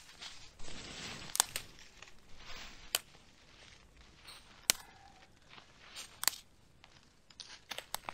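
Dry sticks snapped by hand for kindling: about five sharp cracks, roughly every second and a half, with rustling in dry leaf litter in the first couple of seconds.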